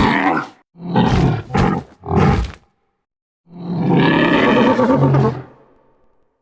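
Paraceratherium creature sound effects, an extinct giant rhinoceros voiced by designed animal calls: four short calls in quick succession, a pause, then one long bellowing call about halfway through that fades away.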